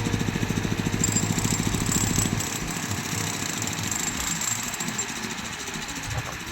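Diesel engine of a tractor or backhoe running with a fast, even throb. About two seconds in, it drops in level and turns rougher.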